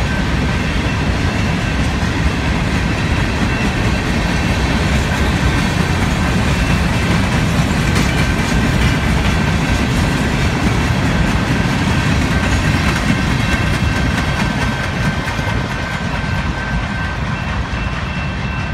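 Loaded coke hopper cars of a freight train rolling by: a steady rumble and clatter of steel wheels on rail, with a faint steady high ring above it. The sound eases off slightly near the end as the tail of the train passes.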